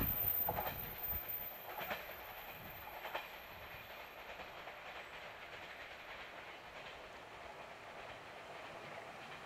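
JR 485 series electric train passing. It is loud at the very start, then drops away to a faint rumble, with a few clacks of wheels over rail joints in the first three seconds as it runs off into the distance.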